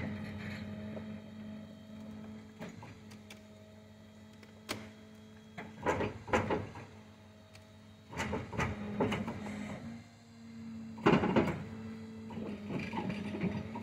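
Machinery on a tilt-bed shed-hauling trailer running with a steady hum, with a few sharp clicks and louder noisy surges about six, eight to nine, and eleven seconds in.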